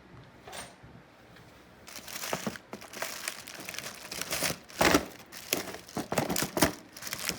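Packaging crinkling and rustling as it is handled, starting about two seconds in, with a sharp knock about five seconds in.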